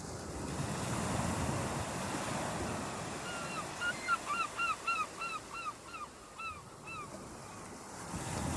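Surf washing in on a beach in a steady wash of noise. In the middle a bird calls a quick run of about a dozen short, downward-slurred notes.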